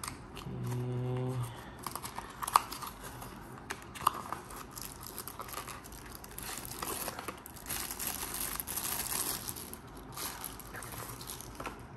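A small cardboard product box being opened and a phone holder taken out of its plastic bag: paper scuffing, a couple of sharp clicks, and plastic crinkling that is strongest in the second half.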